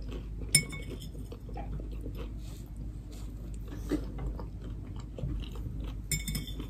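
Crunchy chewing of a flaky, nut-topped pie, with a fork clinking against the plate about half a second in and again near the end.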